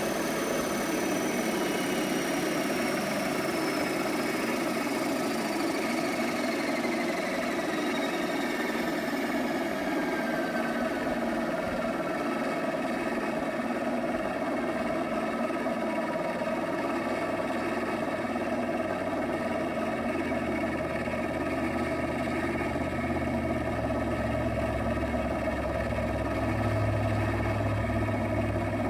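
Align 600-size RC model helicopter winding down: a whine falling steadily in pitch over the first ten seconds or so, over a steady mechanical drone. A low hum comes in during the second half.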